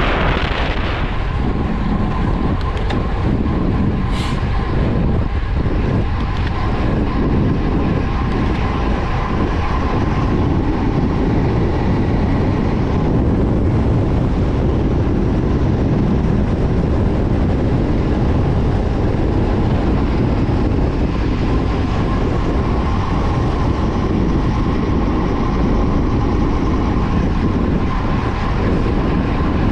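Steady rumble of wind buffeting the microphone, mixed with road-bike tyres on asphalt, during a road descent.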